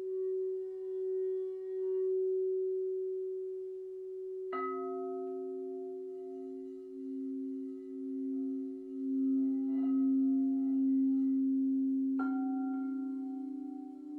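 Quartz crystal singing bowls ringing in long, sustained tones that waver slowly in loudness. About four and a half seconds in, a bowl is struck and a lower tone joins, and it keeps ringing. A lighter strike follows near ten seconds, and another bowl is struck near the end.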